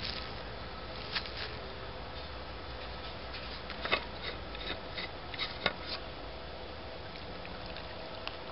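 Light clicks and rubbing of hands working fruit pieces into a small stainless steel mug, with a few sharper taps about four and six seconds in, over a faint steady hum.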